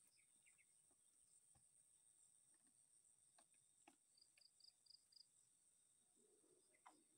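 Near silence: a faint, steady, high-pitched insect drone, with a run of five quick high chirps about four seconds in and a few faint ticks.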